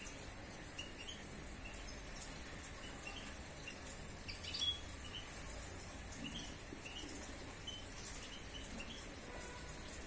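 European goldfinches in an aviary giving faint, scattered short chirps and calls, with one louder call about halfway through.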